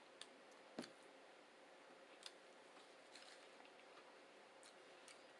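Near silence with a few faint clicks, the clearest about a second in.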